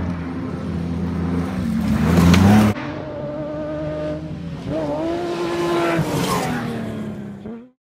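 Off-road race buggy engines at high revs, their pitch rising and falling. The sound breaks off sharply about three seconds in, then a buggy engine grows louder as it passes close about five to six seconds in, and the sound cuts out just before the end.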